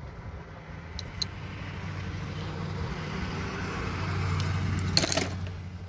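A car going past, its engine and road noise swelling gradually to a peak about five seconds in and then easing off. A few light clicks sound over it.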